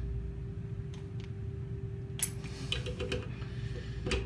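Click-type torque wrench being adjusted and handled: a few light metallic clicks, with a sharper click about four seconds in. A faint steady hum runs underneath.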